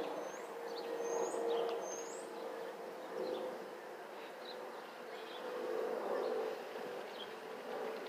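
Airbus A320-family airliner passing overhead, its underwing fuel over-pressure protector (FOPP) cavities giving a steady whistle over the jet engine noise, the whistle swelling and fading in strength. Birds chirp briefly in the first couple of seconds.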